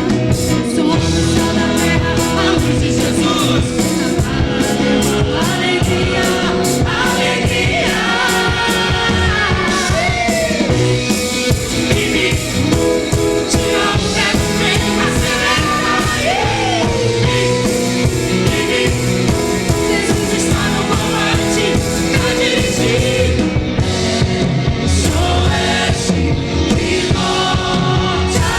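Upbeat pop-rock song with singing over a full band backing.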